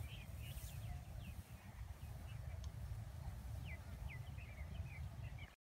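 Small birds chirping: many short, high, falling chirps scattered through, over a steady low rumble.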